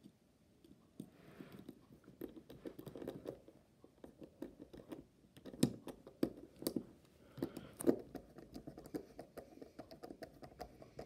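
Small precision screwdriver clicking and scraping irregularly against a tiny screw in a smartwatch's metal case as the screw is turned in, with light taps from handling the watch.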